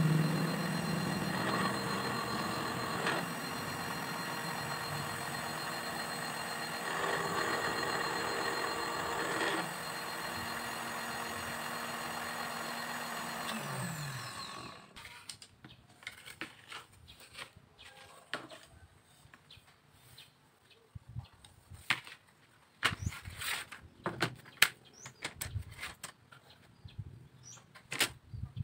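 Bench drill press running steadily while a small bit drills holes in thin bamboo strips. About halfway through it is switched off and the motor winds down with a falling pitch. Then come scattered light clicks and taps of bamboo sticks being handled.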